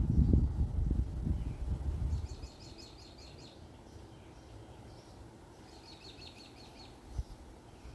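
A low rumbling noise for about the first two seconds, then a small songbird singing a quick trill of rapidly repeated high notes, twice, a few seconds apart. A soft low thump near the end.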